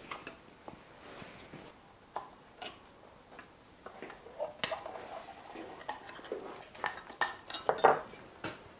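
Scattered metallic clinks and taps of hand tools and loose parts being handled on a stripped-down Rolls-Royce Meteor V12 engine, sparse at first and busier in the second half, with a small cluster of louder clinks near the end.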